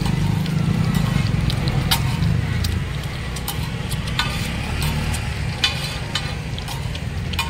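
Halved boiled eggs frying in oil on a large flat griddle, with irregular sharp clicks and scrapes as a knife and a steel spatula tap and slide against the metal pan. A steady low rumble runs underneath.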